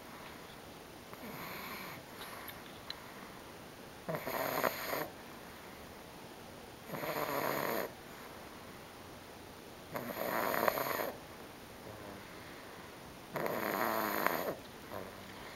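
Pug snoring loudly in deep sleep: five snores about three seconds apart, each lasting about a second, the first one fainter.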